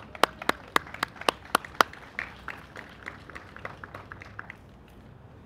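Scattered applause from a small crowd, with one pair of hands clapping loudly and close at about four claps a second. The clapping thins out and dies away about four and a half seconds in.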